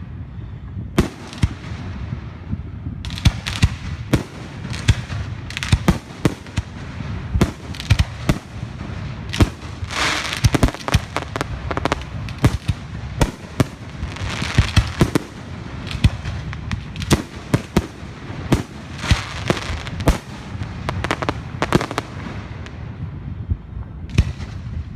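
Fireworks going off: a continuous run of irregular sharp bangs and crackles, often several a second, with crackling between the reports.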